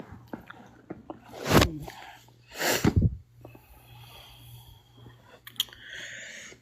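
A person's loud breath noises through the nose, two sharp bursts about a second apart.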